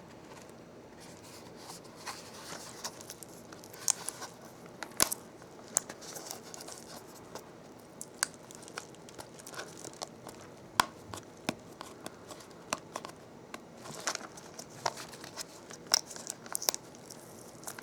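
Packaging being handled and opened: plastic crinkling and tearing, with irregular small clicks and snaps.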